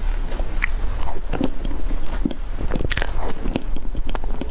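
Close-miked eating sounds of a mouthful of thick whipped-cream cake: irregular soft wet smacks and clicks of the mouth working the cream.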